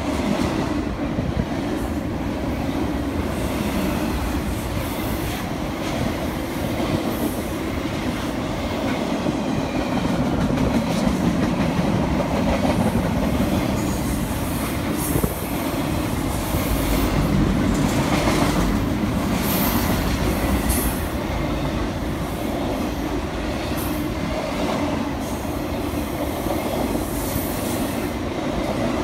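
Intermodal freight train of double-stacked containers and trailers rolling steadily past, with a continuous rumble of wheels on rail. Brief high wheel squeals come several times in the second half.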